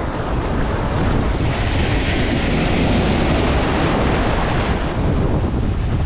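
Ocean surf breaking and washing over the shallows, swelling to a louder hiss through the middle and easing near the end, with wind rumbling on the microphone underneath.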